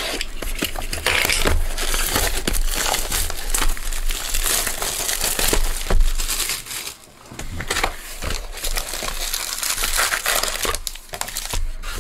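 Plastic shrink-wrap crinkling and crumpling as it is torn off a cardboard baseball-card hobby box, with a brief lull about seven seconds in, then rustling of the opened box and wrapped card packs.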